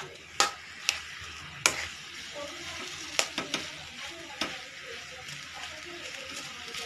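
Spiced boiled potato being mashed and mixed by hand in a steel kadhai: a steady faint hiss with several sharp clicks and knocks against the pan, most of them in the first half.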